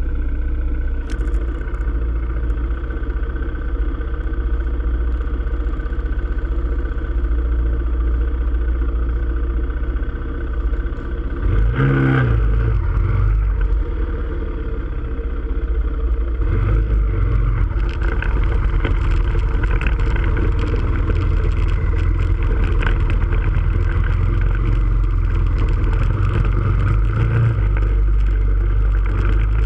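Quad bike engine running under way, its pitch climbing sharply about twelve seconds in, shifting again a few seconds later, and rising once more near the end.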